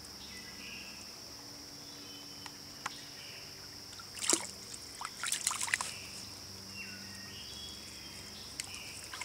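Young raccoons foraging in a shallow creek, with small splashes and wet scrabbling of paws in water and mud. The sounds come in a loud cluster around four to six seconds in, over a steady high-pitched hum and a few short faint chirps.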